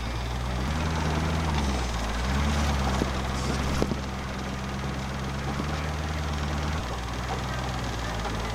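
An off-road competition truck's engine running at low revs, heard from inside the cab. Its pitch steps up and down a little a few times as the revs shift.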